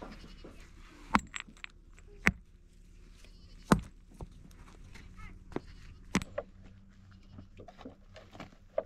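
A series of sharp knocks or taps at irregular intervals, about four loud ones and several lighter ones, over a low steady background.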